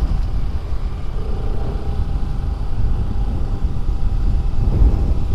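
Motorcycle being ridden along a road: a steady low rumble of the engine and road noise.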